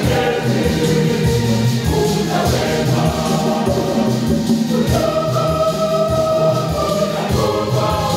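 Mixed choir of men and women singing a Swahili gospel song in harmony, over a steady beat on a pair of conga drums.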